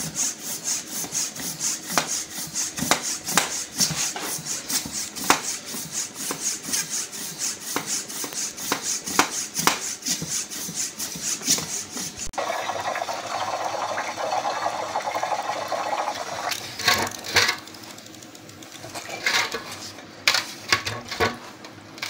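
Hand floor pump being worked in quick, even strokes to inflate a motorcycle inner tube. About halfway through it gives way to a steady rushing noise, then a few scattered knocks.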